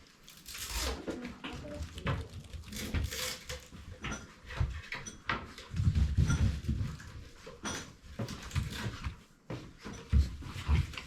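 Small dogs moving about a room: irregular rustling, scattered light clicks and a few dull thuds.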